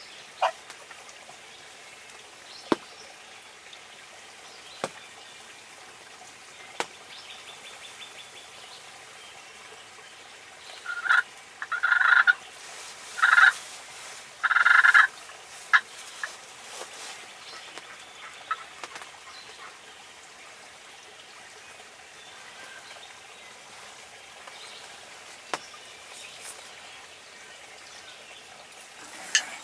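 Turkey gobbling in four short, rapid bursts about halfway through, over faint steady trickling water, with a few sharp clicks scattered throughout.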